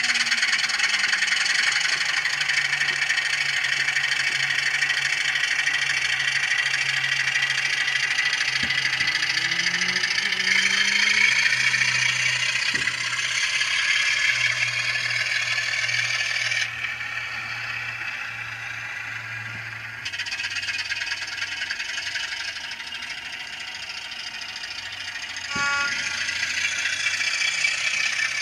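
Sound decoder in an N gauge Dapol Class 27 model playing a diesel locomotive engine sound through its tiny speaker, with the model's wheels and motor rattling along the track. The engine note rises and falls briefly around a third of the way in, and the rattle dips for a few seconds past the middle.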